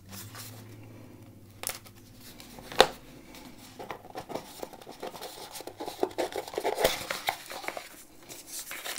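A blade slitting the seal of a small cardboard box, with a sharp click a little under three seconds in. Then cardboard scrapes and rustles as the box is pulled open.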